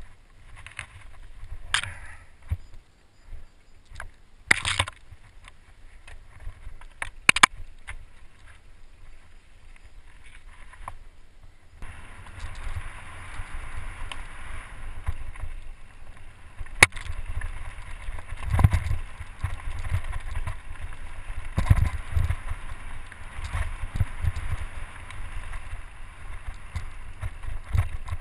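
Mountain bike sounds picked up by a helmet camera: at first a few sharp clicks and knocks from the bike at a standstill, then from about twelve seconds in the run downhill, with steady wind noise and tyre rumble on the dirt trail and frequent knocks and rattles from the bike over bumps.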